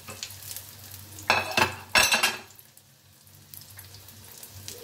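Crumb-coated shami kebab patties shallow-frying in oil on a low flame, with a steady crackling sizzle. About a second and a half in there are two louder bursts of clatter, like a metal utensil against the pan.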